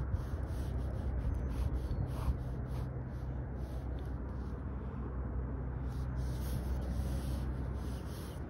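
Pen scratching across sketchbook paper in short, repeated strokes that pause for about a second midway. Under it runs a steady low rumble.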